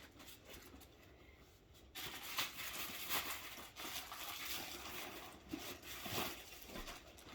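Packaging crinkling and rustling as the folded inflatable is handled and pulled out of its opened box, starting about two seconds in after a near-quiet start.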